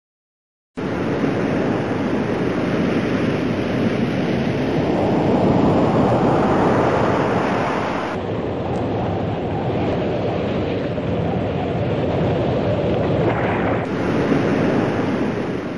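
Storm-at-sea sound effect: a steady rush of wind and crashing waves that cuts in abruptly about a second in and shifts slightly around the middle.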